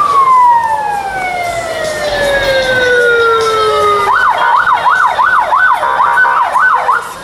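A siren's tone gliding slowly down in pitch as it winds down. About four seconds in it switches to a fast up-and-down wail, roughly two cycles a second, which stops shortly before the end.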